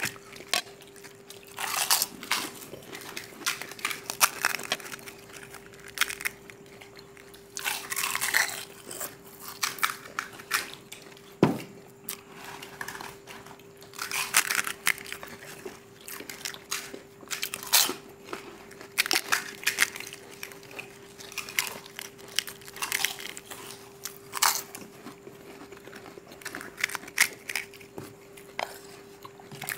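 Pani puri eating: crisp hollow fried puri shells being cracked open and bitten, with irregular crunching and chewing from several people eating quickly. A single sharper knock comes about a third of the way through.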